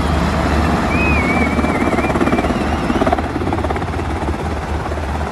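Military helicopter's rotor beating steadily and loudly as it descends to land. A thin, wavering whistle rises and falls over it from about a second in.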